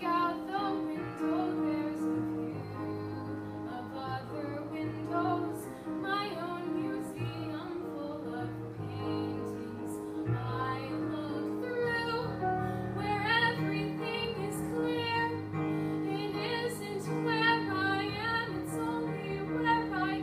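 A teenage girl singing a song solo, her voice carrying a melody over a steady instrumental accompaniment of held low notes.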